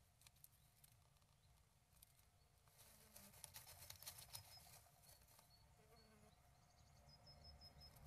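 Faint scratching, rustling and small clicks of a great tit working moss nest material in a wooden nestbox, shaping the nest cup with its feet and bill. The clicks are sparse at first and come in a dense run from about three to five and a half seconds in.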